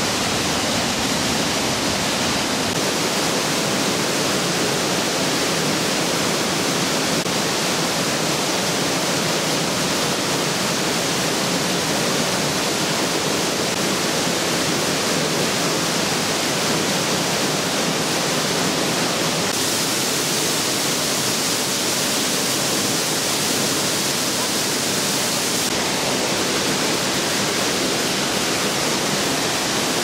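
Kaminari-daki waterfall, a large plunge of water crashing down into its pool, making a steady, unbroken rush.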